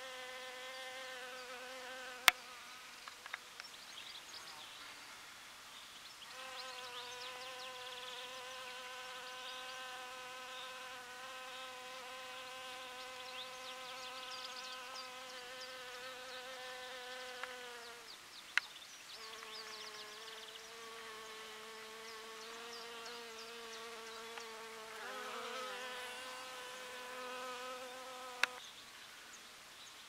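Honeybee buzzing in flight: a steady wingbeat hum that comes in three long spells with short gaps between, its pitch dipping briefly near the end of the second spell and wavering in the third. Three sharp clicks cut in, about two seconds in, just after the second spell and near the end.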